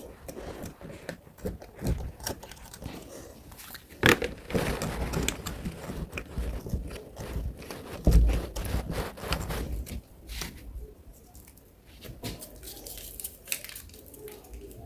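Fingers working the toys on a fidget board: irregular clicks and taps with crackly scraping, a sharp click about four seconds in and a dull thump about eight seconds in.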